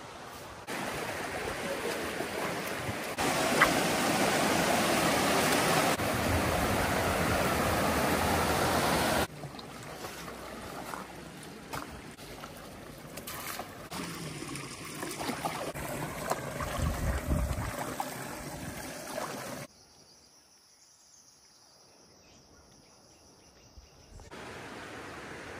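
River water rushing steadily, its loudness jumping abruptly up and down several times, with a much quieter stretch near the end.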